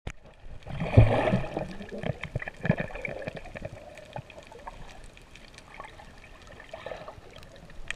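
Muffled underwater water sounds picked up by an action camera in its waterproof housing: swimmers stirring the water, gurgling and bubbling, with a loud bump about a second in and scattered small clicks.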